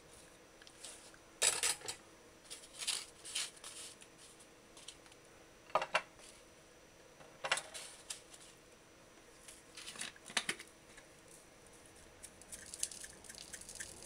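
Garlic scraped on a small flat metal hand grater, with scattered scrapes and clinks of the grater against the tray. Near the end comes a quick run of small rattling clicks as dried herbs are shaken from a jar.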